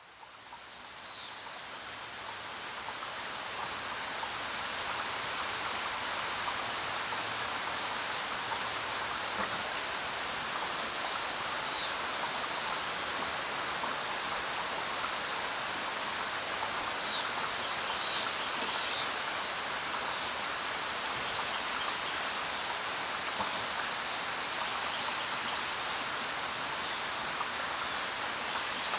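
Steady rain, fading in over the first few seconds and then holding even. A few short, high notes stand out over it now and then.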